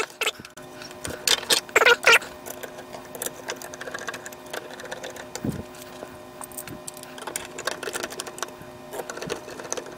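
Hard plastic parts of a 3D-printed clock frame being handled and set down on a tabletop: scattered clicks, taps and light rattles, with a louder cluster of clacks about two seconds in.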